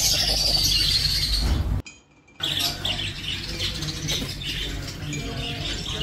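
Budgerigars chirping and warbling in a busy, continuous chatter, broken by a brief silent gap about two seconds in.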